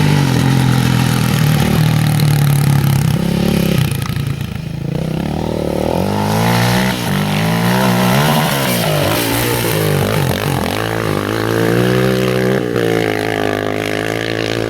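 Rally car engine working hard on a gravel stage. It holds steady for a few seconds, then its pitch repeatedly rises and falls with throttle and gear changes.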